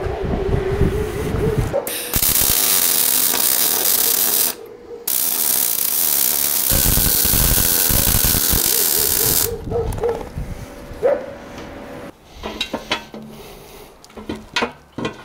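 Electric arc welding on a steel engine run stand: two runs of steady crackling hiss, a short one of about two and a half seconds and a longer one of about four and a half seconds, with a brief break between them. A short squeal comes before the welding, and scattered metal knocks and clinks follow near the end.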